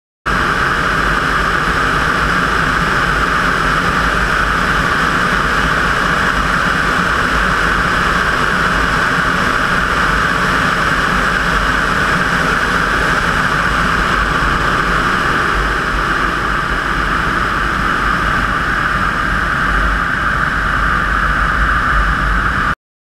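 Steady rush of airflow over a camera mounted on a glider's wing in flight: a loud, even wind noise with a low, uneven buffeting rumble beneath it. It cuts off abruptly near the end.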